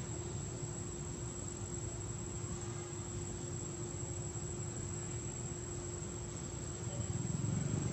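Steady insect drone with a thin, constant high whine, over a low background rumble that grows louder near the end.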